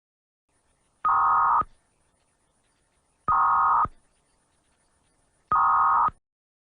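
Three identical bursts of Emergency Alert System digital data tones, each about half a second of buzzing warble, roughly two seconds apart. They are the end-of-message signal that closes the alert.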